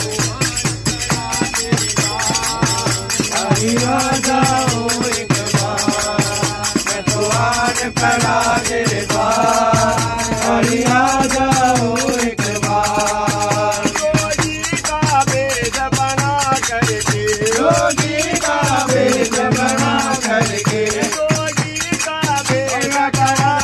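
Men singing a Hindu devotional bhajan in unison, accompanied by brass manjira hand cymbals and a steel plate and tumbler clanged together in a fast, steady beat.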